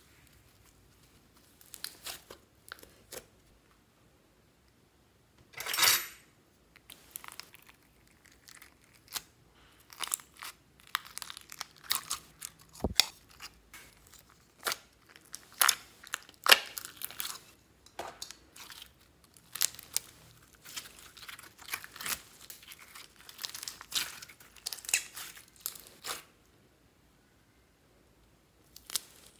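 Slime being stretched, torn and pressed by hand: irregular sticky crackling, popping and tearing, with one louder burst about six seconds in and a quiet stretch near the end.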